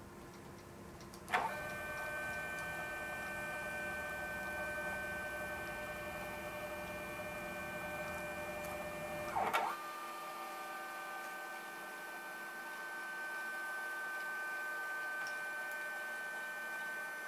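Scavenged scanner stepper motors, driven by EasyDriver boards, whining with several steady pitched tones as they move the laser head during engraving. The whine starts with a click about a second in, shifts to a different set of tones with a click about halfway through, and stops with a click near the end. A faint steady hum runs underneath.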